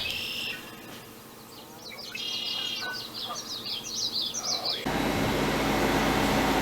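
A small bird singing a quick run of short, high chirps, each one falling in pitch. About five seconds in, the sound cuts abruptly to a steady, even hum.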